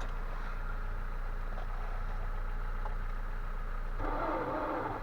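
Nissan Primera P12 engine turning over on the starter without catching, a steady drone: a cold no-start at minus 20. About four seconds in, a higher wavering sound joins it.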